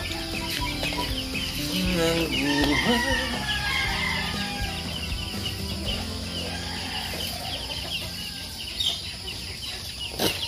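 Chickens clucking and calling, the calls busiest about two to three seconds in, with a single sharp click near the end.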